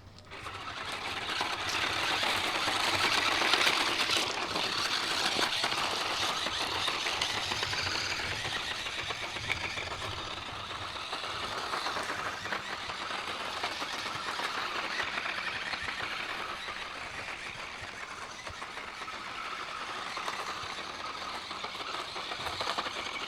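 DEERC DE36W 1/16-scale RC truck driving, its small electric motor whirring and the chassis rattling over rough ground. It sets off at once, is loudest a few seconds in, then runs on steadily.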